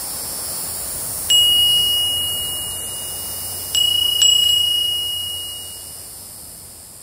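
A small wind chime rings three times, a single clear high note each time, the last two about half a second apart, over a steady hiss that fades away near the end.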